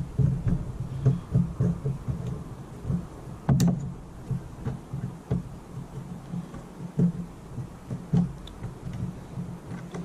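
Wiper blade being worked onto a wiper arm by hand: irregular dull knocks and handling noise over a low rumble, with one sharp click about three and a half seconds in.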